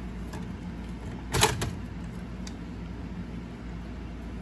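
A short, sharp clunk about a second and a half in, with a few faint clicks around it, as the slot machine's bill validator and its connector are handled, over a steady low hum.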